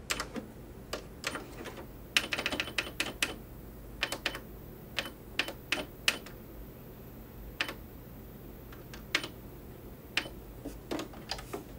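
Stitch-selector buttons on a Janome computerised sewing machine pressed again and again: about twenty short, sharp clicks at irregular spacing, with a quick run of them between about two and three seconds in, as the stitch number is stepped from a zigzag setting back toward a straight stitch.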